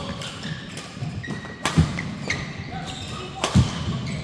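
Badminton doubles play on an indoor court: two loud sharp hits, about a second and three-quarters apart, among lighter knocks and footfalls, with brief shoe squeaks on the court floor.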